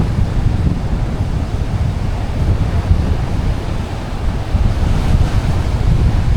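Strong wind buffeting the microphone, heavy rumble at the bottom, over the steady wash of surf from a choppy sea.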